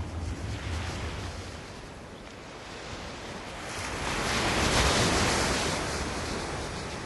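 Ocean surf: a wave swells, breaks with a wash of noise about four to five seconds in, then recedes.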